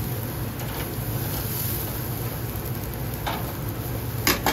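Steel tongs and a wire grill basket clinking on the mesh grate of a gas grill: faint clinks about a second in and again past three seconds, then two sharper metal clanks near the end as the basket is set down. A steady low rumble runs underneath.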